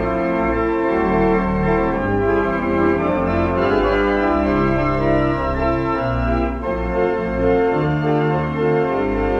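Pipe organ playing slow, held chords over a moving bass line, the chord changing about once a second.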